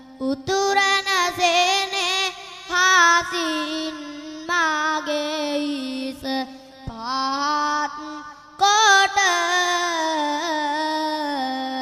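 A young Buddhist monk's solo voice singing Sinhala kavi bana (sung verse sermon) in a long, wavering, ornamented melody, phrase after phrase with short breaths between, the loudest phrase starting a little past the middle.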